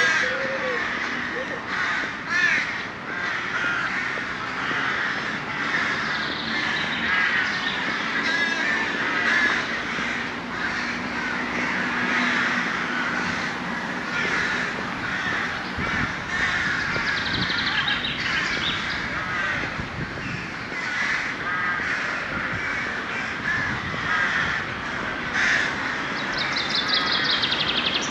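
A large flock of crows cawing, many short calls overlapping continuously.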